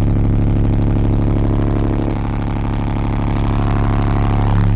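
Six Soundstream XXX 15-inch subwoofers, driven by a Soundstream TXP1.18000D amplifier at 0.47 ohm, playing a 35 Hz test tone at full volume as a loud, steady drone. It is a metered SPL run that peaks at 154.6 dB.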